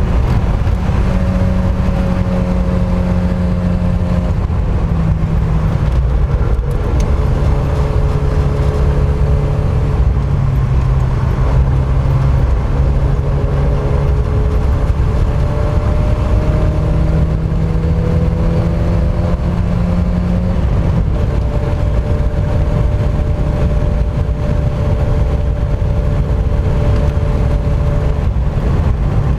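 Mk1 Mazda MX-5's four-cylinder engine driven hard on a race circuit, its note rising and falling in steps through gear changes and braking, over continuous road and wind noise.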